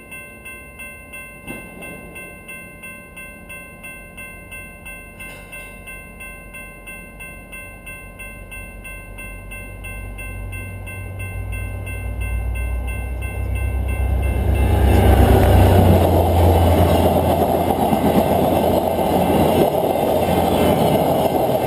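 A railway crossing bell rings steadily, about two strokes a second. From about ten seconds in, the low rumble of an approaching VIA Rail passenger train rises. From about fifteen seconds the train passes close by, with the loud steady rolling noise of its wheels on the rails.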